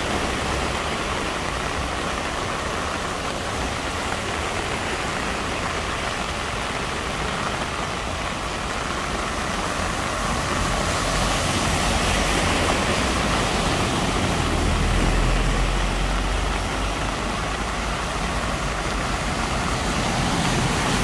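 Heavy rain falling steadily while vehicles drive through deep floodwater, their wheels churning and splashing the water. A low engine rumble grows past the middle and again near the end as a van and then a bus pass close by.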